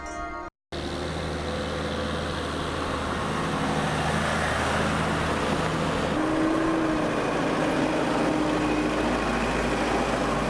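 A motor vehicle's engine running steadily with road noise, starting after a brief cut; a steady higher hum joins for a few seconds about six seconds in.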